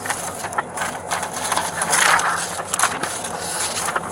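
A run of irregular crackling and clicking noise, thickest and loudest about two seconds in.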